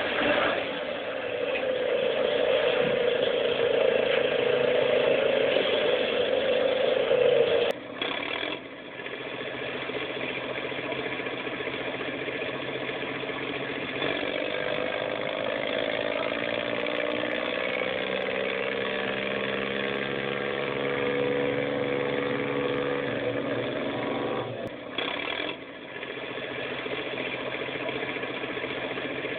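Vehicle engine sound effect running steadily, with two short breaks, one about 8 seconds in and one about 25 seconds in.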